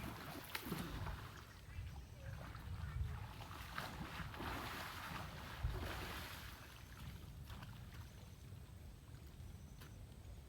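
Rushing water with wind buffeting the microphone and a few brief knocks, louder for the first six seconds or so and then fading.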